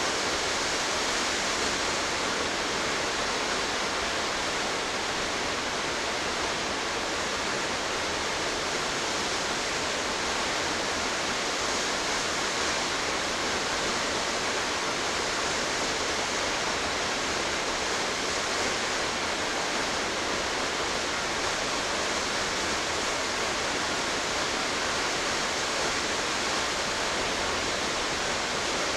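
Tall waterfall's steady rush and roar of falling water, an even hiss that does not change.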